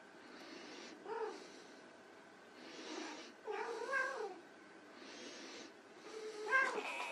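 Persian kitten mewing three times: a short high mew about a second in, a longer mew that rises and falls about halfway through, and another short mew near the end.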